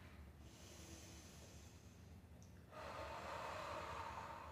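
A woman breathing in a resting stretch: a faint breath, then a louder, longer breath out starting a little under three seconds in.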